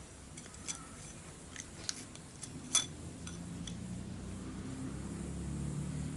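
A few light metallic clicks and clinks from handling a piston and its rings, the loudest about three seconds in, over a low hum that grows louder toward the end.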